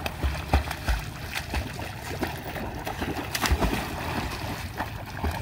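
Rottweilers swimming and splashing in a lake: irregular splashes and sloshing water, with dull low thuds now and then.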